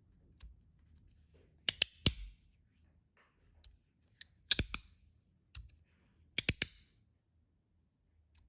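Copper Magnus Robo fidget slider with zirconium plates and strong magnets, its plates snapping into place: sharp metallic clicks in irregular clusters of two or three, a second or two apart.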